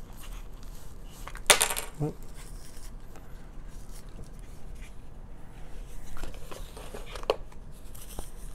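Unboxing handling noise from a small product box and its packaging: a brief loud rustle about a second and a half in, then a few lighter knocks and clicks.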